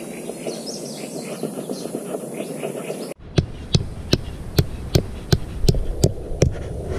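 About three seconds in, a hatchet starts pounding a tent peg into the ground: about nine sharp, evenly spaced strikes, a little over two a second.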